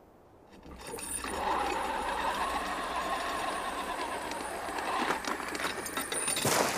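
Sound effect of a winch lowering a load down a well shaft: a steady mechanical clattering and creaking that builds up after the first second and ends with a thud near the end.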